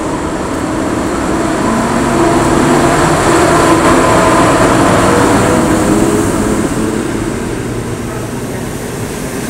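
EU07 electric locomotive pulling away and passing close by with its train of passenger carriages: a steady motor hum over rolling wheel noise, swelling as the locomotive goes past about three to five seconds in, then easing as the carriages roll by.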